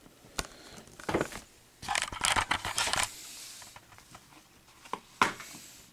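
Plastic Blu-ray eco case being handled and opened: a few sharp clicks and taps, about a second of rustling and scraping, then another sharp click a little after five seconds in.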